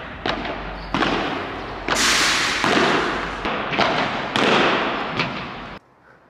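Padel balls struck with rackets in a volley drill, about one sharp pop a second, each ringing on with a long echo. The sound cuts off abruptly near the end.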